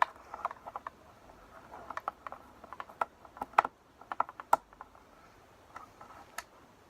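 Light, irregular clicking and tapping as a Torx bit is turned by hand to undo a screw in the plastic wing-mirror housing, several small clicks a second with a few sharper ones a little past halfway.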